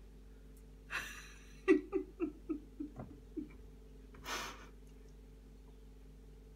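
A woman laughing: a breathy outburst, then a quick run of about seven short 'ha' pulses that fall in pitch, followed by a breathy exhale about a second later.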